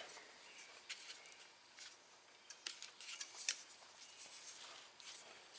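Faint, scattered clicks and scrapes of hands handling the push mower's engine, with its recoil starter cover off, as it is turned over by hand. The engine turns very tight.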